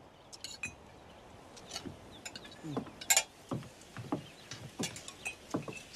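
Scattered clinks of metal cups and tableware and soft knocks at a banquet table, with a bright clink about three seconds in.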